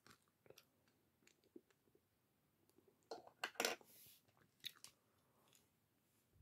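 Faint, sparse crunching of a hard candy cane being chewed, with a short cluster of louder crunches about three and a half seconds in, mixed with small clicks of plastic LEGO pieces being handled.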